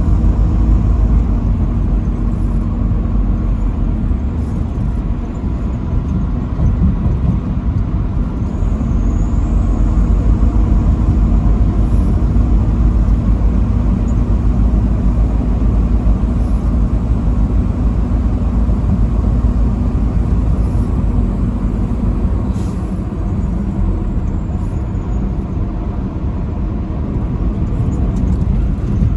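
Semi-truck driving on the highway: a steady, low engine and road rumble with tyre noise, unbroken throughout.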